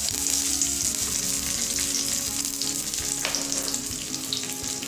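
Fresh curry leaves frying in hot coconut oil, a steady sizzling hiss with the odd sharp pop.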